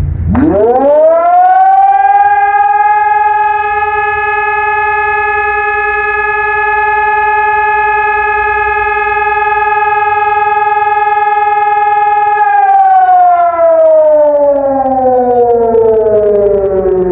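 ECI DT 1200 siren sounding one long tone of the German fire alarm signal (Feueralarm). It winds up to a steady pitch within about two seconds, holds it for about ten seconds, then the pitch falls steadily as it winds down.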